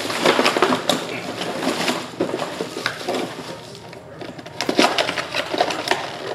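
Crackling, crinkling handling noise full of small clicks, in two spells: the first runs for about three seconds, and a second starts about four and a half seconds in.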